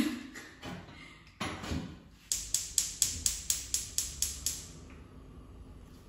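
Gas hob's electric spark igniter clicking rapidly, about four sharp ticks a second for some two seconds, then stopping as the burner catches. A couple of knocks come first.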